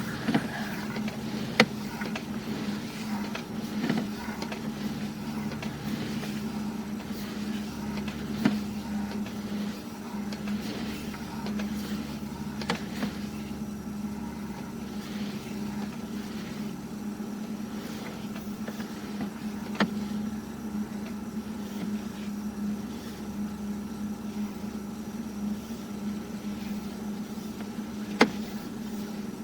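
Steady low mechanical hum, with about five sharp clicks spread through it.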